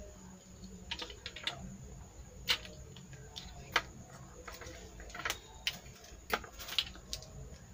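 Irregular small clicks and taps of a neckband Bluetooth earphone's plastic control-unit housing being handled and pried open by hand.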